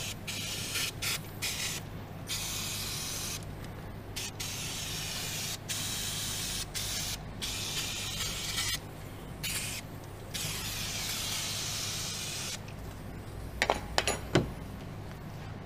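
Aerosol cleaner sprayed in repeated hissing bursts with short pauses onto a freshly fitted rear brake hose connection to clean it off. Near the end the spraying stops and a few sharp knocks follow.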